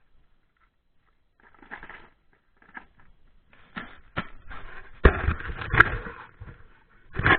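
Hand work on a car's front brakes: irregular scraping and rattling of metal brake parts and tools, with several sharp knocks, starting after about a second and a half and growing louder toward the end.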